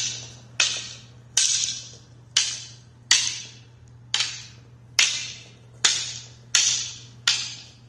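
Training sticks clacking together in a steady partner drill: about ten sharp cracks, roughly one every three-quarters of a second, each ringing off briefly, as strikes meet umbrella and wing blocks.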